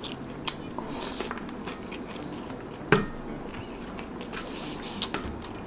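Close-miked eating sounds: chewing with small wet mouth clicks, and one sharper click about three seconds in.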